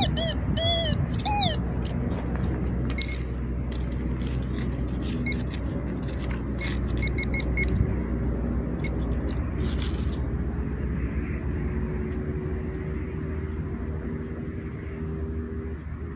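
Metal detector giving a few short rising-and-falling beeps in the first second and a half. Then dry grass crackles and brushes as the detector is swept through it, over a steady low rumble.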